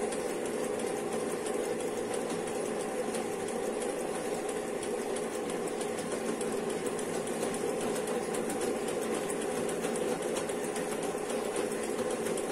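Circular linking (kettel) machine running steadily as it links a knitted waistband onto the fabric, with an even hum and a fast fine ticking of the needle stitching.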